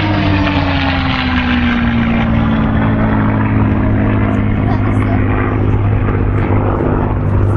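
Piston-engined warbird fighter passing low on an attack run, its engine note falling in pitch over the first two or three seconds as it goes by, over a steady low engine rumble.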